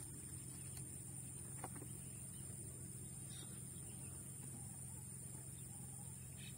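Quiet paddy-field ambience: a steady high-pitched insect drone over a low steady hum, with a couple of faint knocks as pesticide bottles and packets are handled.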